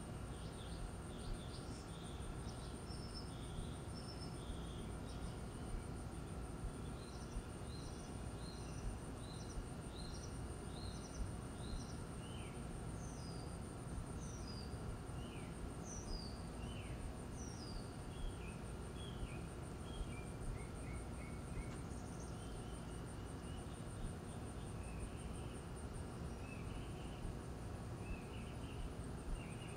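Backyard ambience: a steady high-pitched insect trill throughout, with birds singing short chirps and repeated falling notes, over a low background rumble.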